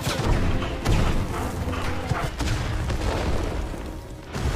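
Film battle soundtrack: music mixed with several deep booms of explosions, the loudest about a second in.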